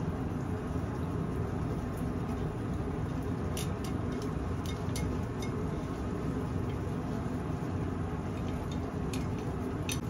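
Food frying in a pan on a gas hob: a steady sizzling rush, with a few light clicks of chopsticks against the plate and pan in the middle and near the end.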